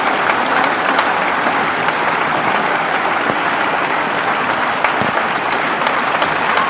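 Theatre audience applauding at a curtain call: many hands clapping steadily.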